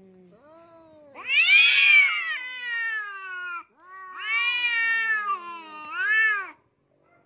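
Domestic cat yowling in a face-off with another cat: three drawn-out wails that rise and fall in pitch, the first about a second in and the last one short, a threat call between rival cats.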